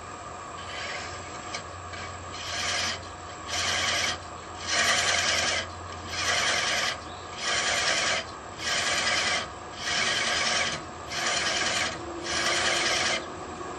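Thread chaser cutting wood threads on a spinning lathe workpiece: a rasping cut repeated in about ten even strokes, about one a second, with a low lathe hum beneath. These are light passes trimming the threads to an equal height.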